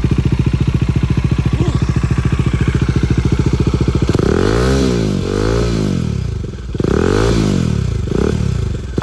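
Motorcycle with an aftermarket flyby silencer idling with a steady, lumpy exhaust beat, then revved up and down several times in quick throttle blips from about four seconds in.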